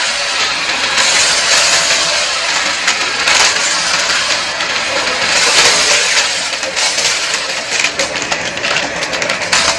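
Shark Navigator upright vacuum running, sucking confetti and glitter off carpet. Its steady motor whoosh is laced with a crunching, crackling rattle of debris going up the nozzle, thicker near the end.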